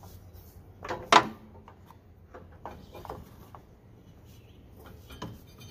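Hands unhooking the bungee cord that holds up a lawn tractor's mower deck: two sharp knocks about a second in, then light clicks and rattles.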